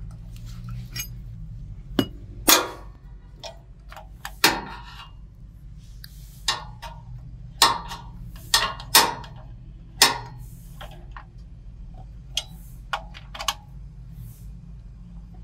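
Irregular sharp metallic clicks and clinks, a dozen or so, from a T-handle box spanner and small metal parts being handled while a new carbon brush assembly is fitted to a generator's alternator. A steady low hum runs underneath.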